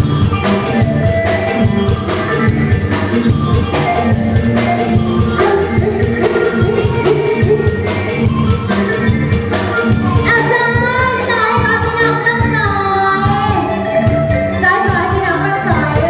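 Live Thai luk thung band music with a drum kit keeping a steady beat, and a woman singing into a microphone, her voice standing out strongly from about ten seconds in.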